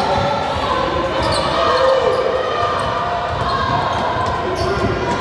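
Basketball bouncing on a gym floor during a game, with voices of players and spectators echoing in the hall.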